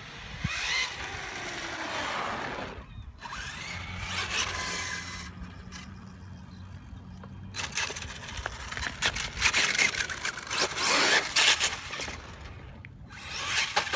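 Traxxas T-Maxx RC monster truck's electric motor and gear train whining, the pitch rising and falling as it speeds up and slows. The owner suspects the whine means the pinion is meshed too tight on the spur gear. From about eight seconds in there is a louder stretch of rapid rough scrabbling as the tyres work hard on the asphalt.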